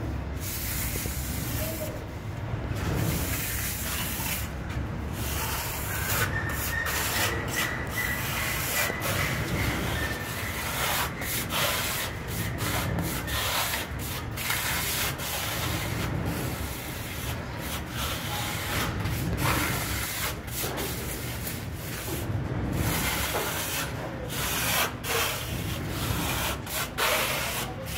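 Hand plastering tool scraping and rubbing across fresh plaster in repeated strokes, with brief pauses between strokes, as the wall surface is smoothed.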